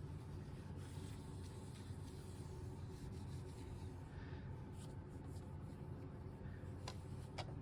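Scrap of fabric wiping excess oil off a sewing machine: faint rubbing and scratching over a low steady hum, with two light clicks near the end.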